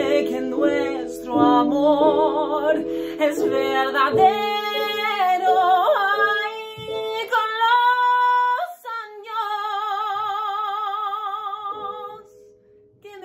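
A woman singing a Spanish ballad over a backing accompaniment. The melody climbs to a high held note about halfway through, then settles on a long note with wide vibrato that fades out about a second before the end.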